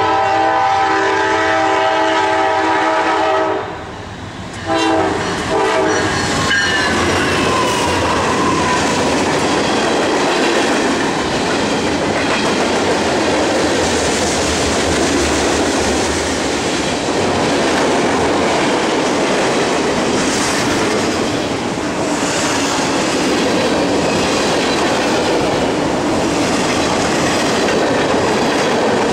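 Freight locomotive air horn sounding a long chord, then a short gap and a brief second blast. After that comes the steady rolling rumble and clickety-clack of a long auto-rack freight train passing close by on the rails.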